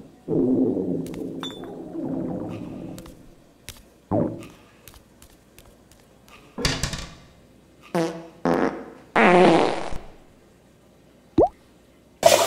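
Cartoon sound effects: a long, low fart-like buzz starts a moment in, then scattered light clicks and clinks and a few short pitched squeals. A sudden loud hissing burst comes near the end.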